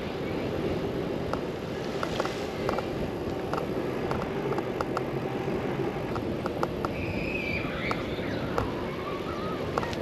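Wind rushing over the microphone and road noise while riding a bicycle downhill, with scattered clicks and rattles from the bike. About seven seconds in, a brief high squeal slides down in pitch.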